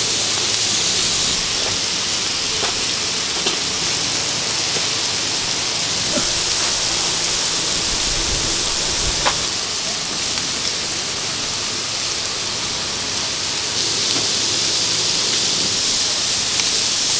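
Chicken and chicken-heart skewers sizzling on hot steel griddles, a steady hiss, with a few light clicks.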